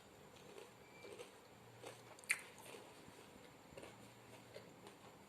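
Faint crunching and small clicks of a crisp fried aloo finger being bitten and chewed, with one sharp crack a little over two seconds in.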